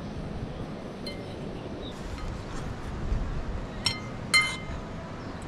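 Metal fork clinking against a ceramic bowl while eating: a light strike about a second in, then two near the end, the last the loudest, each with a short ring.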